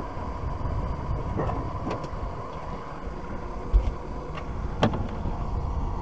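Small gas canister camp stove burner hissing steadily under a pot of boiling water, with a few light clicks and a dull thump a little under four seconds in.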